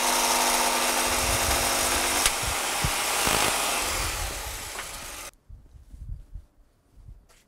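Small electric power tool running with a steady motor hum, switched off about two seconds in and winding down. The sound drops away abruptly about five seconds in, leaving quiet with a few soft knocks.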